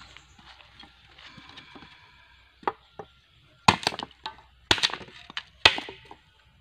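Steel chopper blade chopping into a piece of wood: two light strikes, then three hard chops about a second apart.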